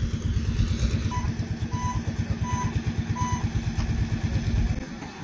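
A small engine idling with a rapid, even pulsing beat, then cutting out shortly before the end. About a second in come four short electronic beeps, evenly spaced.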